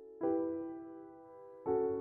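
Piano playing a slow passage: two chords struck about a second and a half apart, each left to ring and fade.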